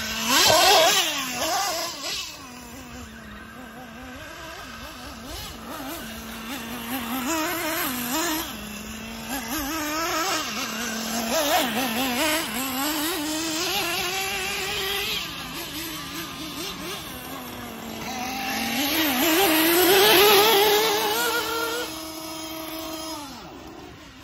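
Radio-controlled off-road buggies being driven round a dirt track, their motors revving up and falling back over and over, with steady stretches between throttle bursts. The sound is loudest about a second in and again around twenty seconds in.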